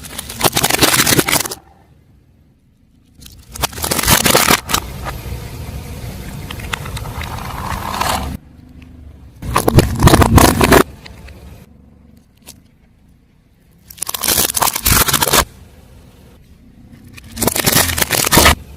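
Car tyre rolling over crunchy objects and crushing them: five loud bursts of crunching and crackling, each about a second long, with quieter rolling noise between them.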